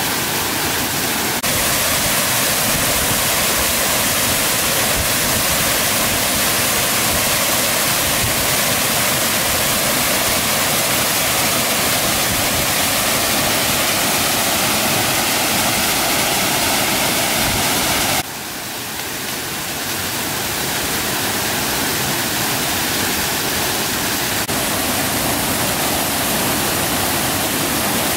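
Steady, loud rush of water, an even hiss with no clear rhythm. It shifts abruptly about a second and a half in, and again about 18 seconds in, where it drops and slowly builds back up.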